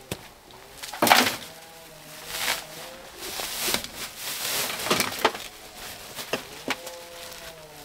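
A white woven sack of soil and potatoes being handled and tipped into a metal wheelbarrow: the sack rustles and soil pours, with a series of knocks and thuds, the sharpest about a second in.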